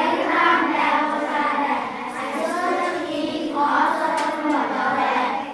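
A class of young schoolchildren chanting together in unison, in a drawn-out sing-song.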